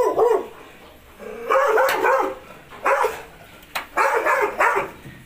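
A dog barking in a run of about four loud, yelping bursts, each under a second, with short pauses between.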